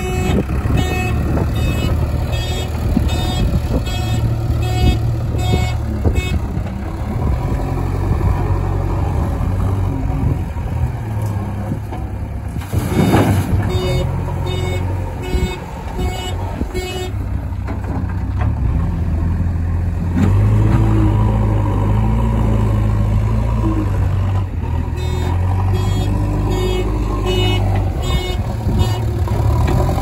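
Heavy diesel engines running, with a reversing alarm beeping in steady runs of about two beeps a second that start and stop several times. There is a short loud burst about thirteen seconds in.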